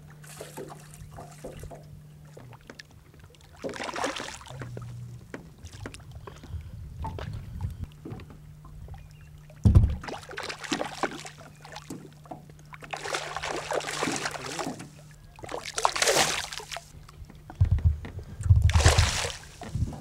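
Water splashing and lapping against a small boat's side in short bursts of about a second, with a few low bumps of wind on the microphone and a faint steady low hum.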